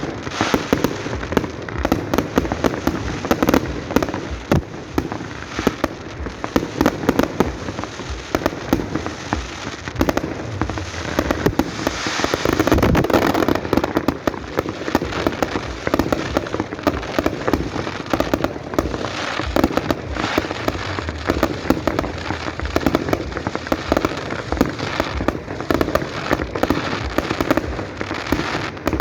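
Fireworks display: a dense, unbroken barrage of bangs and crackling shells, swelling louder about twelve seconds in.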